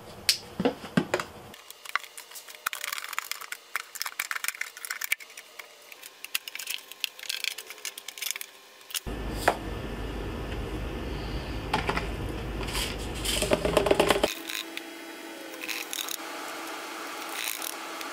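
Irregular clicks, scrapes and rattles of plastic handwork. A laundry-detergent jug is worked into a scoop and funnel, then the scoop digs into loose cation-exchange resin beads in a plastic bowl and tips them through the funnel into the water-softener tank.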